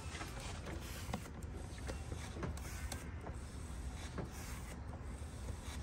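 Coolant being pumped out of a van's plastic coolant expansion tank with a small transfer pump: a steady low hum with scattered faint clicks and creaks.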